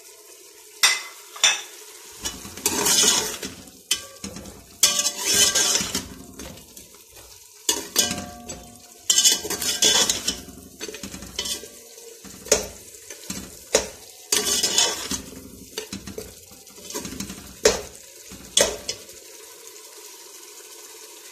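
Slotted metal spatula scraping and clinking against the sides and bottom of an aluminium pressure cooker as mutton and tomatoes are stirred, in irregular strokes, over a steady sizzle of frying on a high flame. The stirring stops a couple of seconds before the end, leaving only the sizzle.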